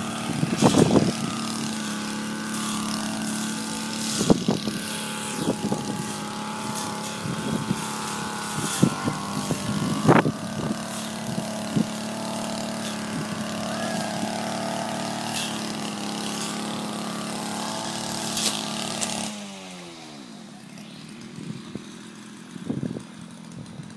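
An engine running at a steady speed, with scattered knocks. About nineteen seconds in it is switched off and its pitch winds down to a stop.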